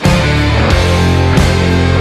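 Background rock music with distorted electric guitar, heavy bass and a driving drum beat.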